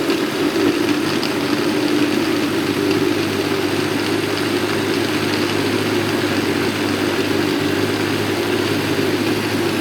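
Electric food processor motor running steadily, grinding chopped red onion and ginger with water into a coarse pulp.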